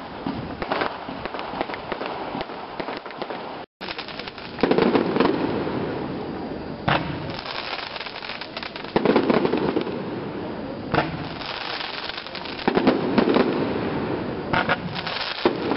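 Fireworks crackling and popping in a dense, continuous stream, swelling into louder bursts about every four seconds.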